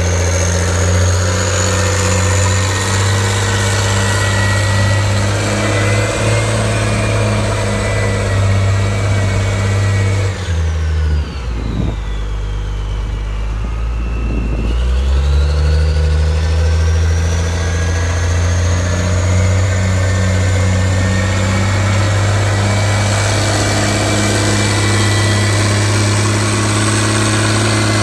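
Diesel engine of a Caterpillar (DJB) articulated dump truck running steadily as the loaded truck drives. About ten seconds in, the engine drops to a lower pitch for around five seconds, then climbs back to its working speed. A high whine above it sinks and rises along with the engine.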